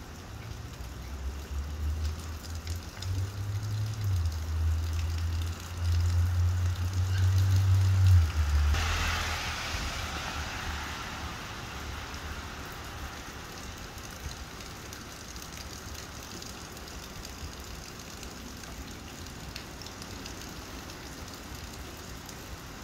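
Steady rain, with the deep stepping bass of a passing car's stereo for the first eight seconds or so. About nine seconds in a loud hiss of tyres on the wet road rises and fades away over a few seconds.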